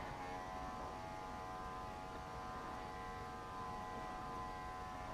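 Wahl Bravura cordless clipper running with a steady hum during a pass over a Maltese's body coat.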